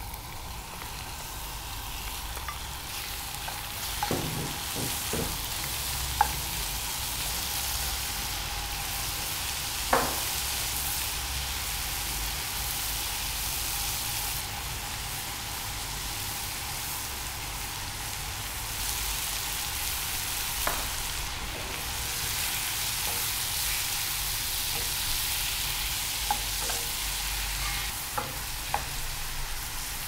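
Shrimp, squid and mussels sizzling in a frying pan with garlic and chili, a steady hiss. It is broken by a few sharp knocks and clicks as the pan is stirred with a wooden spatula.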